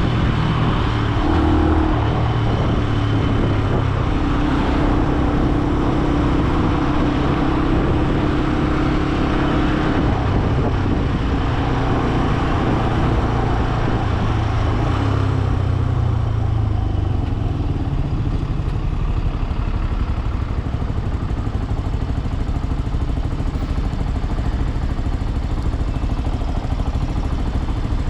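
Benelli BN125 motorcycle's single-cylinder 125 cc engine running under way, its pitch rising and falling with the throttle through the first half, then settling to a quieter, steadier note from a little past halfway.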